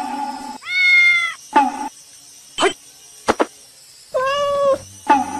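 A grey tabby house cat meowing twice: two drawn-out meows about three seconds apart, with a few short sounds in between.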